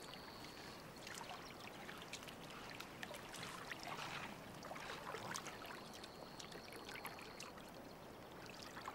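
Lions feeding on a roan antelope carcass in shallow floodwater: faint splashing and trickling water with many small wet clicks, busiest around the middle. A thin, steady high tone comes and goes.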